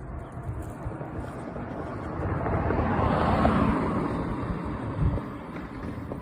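A car passing by, its tyre and engine noise swelling to loudest about three and a half seconds in and then fading away, over a low wind rumble on the microphone.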